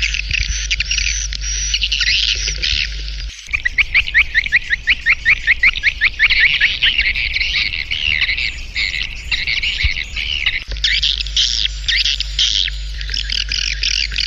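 Recorded chorus of swiftlets chirping densely, played as a swiftlet-farming calling sound to lure birds to a nest house. About three seconds in, a run of rapid, evenly repeated chirps, several a second, breaks in over the chorus before the dense chirping resumes.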